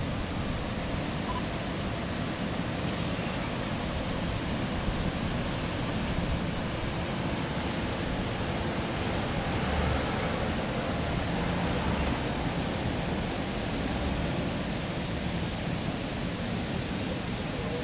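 A steady, even rushing noise outdoors, with a faint low engine rumble swelling slightly about ten to twelve seconds in as police cruisers roll slowly past.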